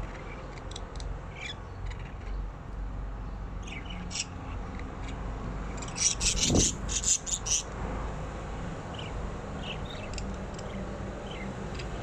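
Budgerigars chirping and chattering in short, high, scattered calls, with a burst of louder chirps and a wing-flapping flutter about halfway through.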